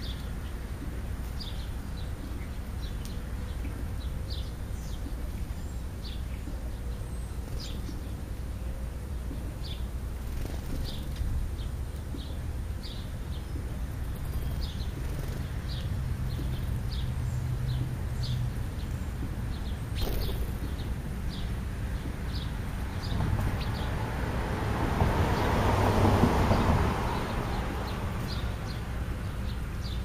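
Short high bird chirps about once a second from house sparrows and young European starlings, over a steady low rumble. In the last third a passing vehicle swells and fades.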